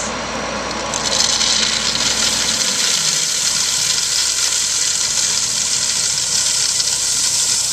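Dump truck's engine running while a load of number 8 gravel slides out of the raised bed, a steady rushing hiss of pouring stones that grows louder about a second in.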